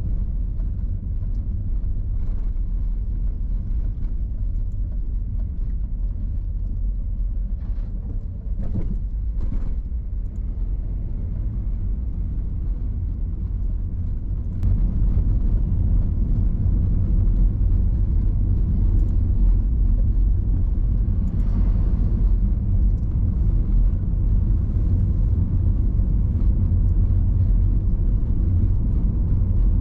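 Car driving on a road under construction: a steady low rumble of engine and tyres, with a few knocks about eight to ten seconds in, and louder from about halfway through.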